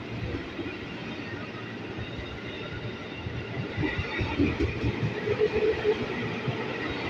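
Ex-JR 205 series electric commuter train moving slowly along the platform, a steady rumble of wheels on rail with some clacking. A faint tone joins it about five seconds in, and the sound grows slightly louder toward the end.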